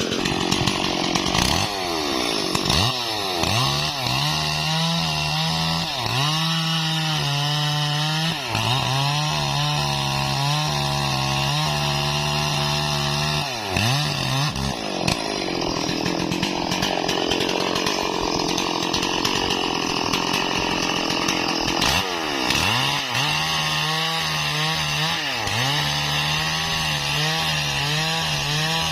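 Stihl MS 440 two-stroke chainsaw cutting into a tree trunk, the engine's pitch dropping as the chain bites into the wood and rising again several times, with a long stretch of higher-pitched running in the middle.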